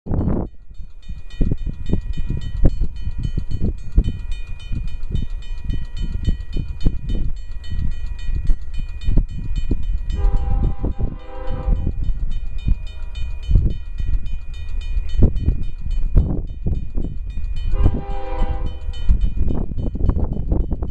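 A grade-crossing mechanical bell (Safetran) rings steadily while a distant approaching freight locomotive sounds two long blasts of its K5HL air horn, the first about ten seconds in and the second near the end. Both sit under a loud, gusty low rumble.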